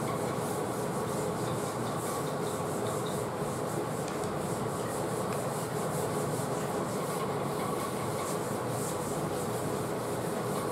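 Blackboard duster rubbing across a chalkboard in repeated wiping strokes as the chalk writing is erased.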